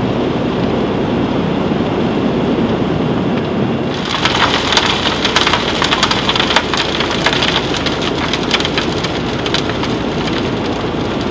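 Crystal potash running out of a steel bin under a Vibrafloor reclaimer: a steady low rumble, joined about four seconds in by a dense hissing crackle of many small clicks as the granules pour and strike the steel.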